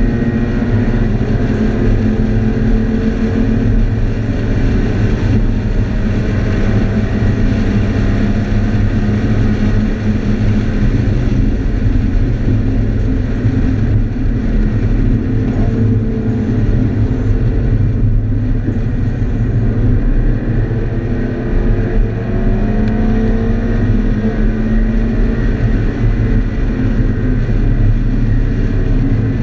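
Scion FR-S's flat-four engine under hard track driving, heard from inside the cabin over a steady low rumble of road noise. Its pitch rises and falls a few times as it accelerates and eases off for corners.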